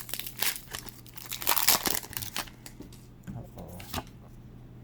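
Foil Pokémon TCG booster pack wrapper being torn open and crinkled: a dense run of crackling rips, loudest about a second and a half in, then a few faint crinkles.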